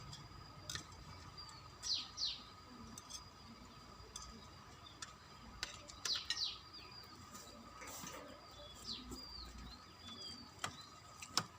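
Small birds chirping: short, sharply falling chirps, often two in quick succession, recurring several times. Under them runs a faint steady high tone, and there are a few soft clicks near the end.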